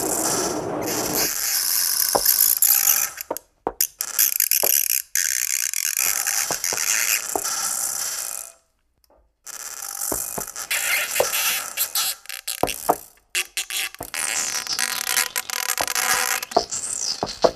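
Experimental electronic noise music: dense hissing, crackling textures broken by sharp clicks and sudden cut-offs, dropping out completely for under a second about halfway through before starting again.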